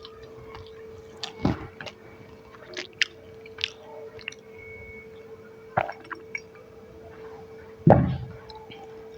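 Close-up eating sounds: chewing and squishing of food, with a handful of sharp clicks and taps, the loudest about a second and a half in and near the end.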